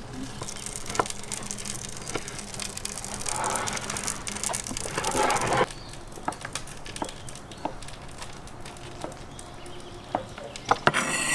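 Knives chopping raw meat on wooden cutting boards, with sharp knocks coming about once a second in the second half. A louder rustling hiss builds in the middle and cuts off suddenly a little past halfway.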